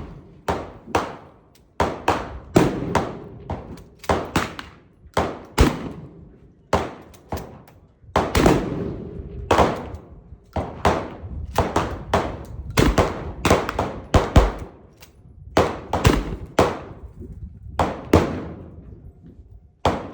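Gunfire on a shooting range: about two dozen shots in quick, irregular succession, each with a short echoing tail.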